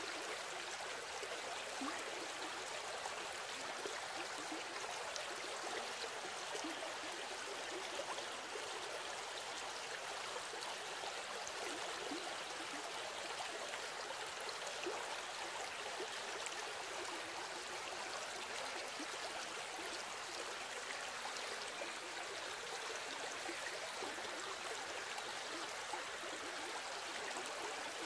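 A steady, even rushing noise, with no speech or music.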